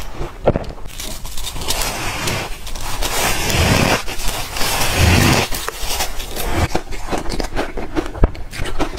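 Close-miked crunching and chewing of ice chunks coated in matcha powder, with dense crackling crunches and sharp snaps as the ice is bitten and broken between the teeth.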